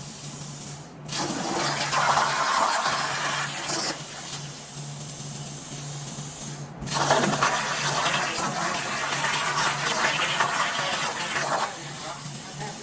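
CNC plasma torch cutting 11-gauge steel sheet over a water table: a loud, steady hiss over a low hum, with the arc cutting out briefly about a second in and again about halfway, then restarting each time.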